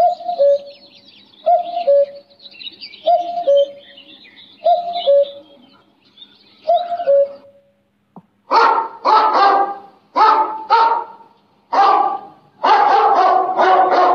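Common cuckoo calling its two-note, falling cuck-oo five times, with other birds singing higher behind it. About eight seconds in, a dog starts barking in a quick run of loud barks.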